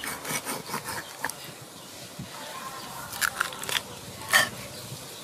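Kitchen knife cutting through a whole raw fish on a wooden chopping board, making a run of short crunching, scraping cuts. A louder sharp crunch comes about four seconds in.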